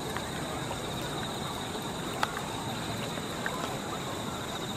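Outdoor ambience: a steady hiss with a constant high-pitched buzz, and a few sharp clicks, the loudest about two seconds in.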